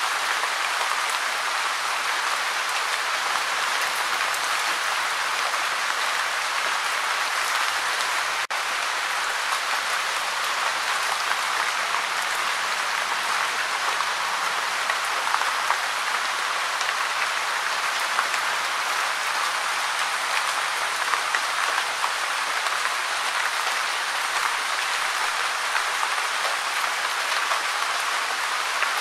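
Steady gentle rain, a dense even hiss of many falling drops, cutting out for a split second about eight seconds in.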